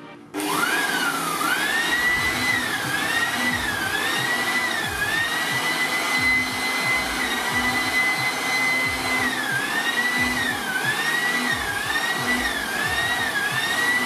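Hyundai 2-in-1 electric air blower/vacuum switched on in blowing mode. Its motor whine climbs as it spins up, then repeatedly sags and recovers in pitch, holding steady for a few seconds in the middle.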